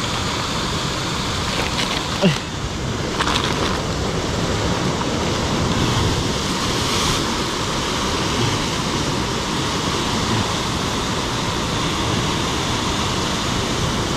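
Sea surf breaking against the rocks below, a steady rush of waves, with one short sharp click about two seconds in.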